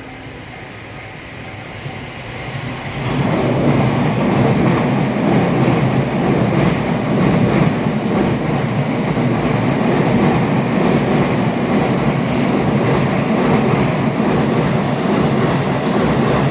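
A train passing close by on the rails. The loud rumble of wheels and running gear builds sharply about three seconds in, holds steady and begins to fade near the end.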